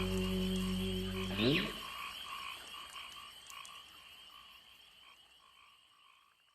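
The last chord of an acoustic country song rings out and ends with a rising slide about a second and a half in. Frogs then croak in a steady repeating rhythm, fading out to silence at the end.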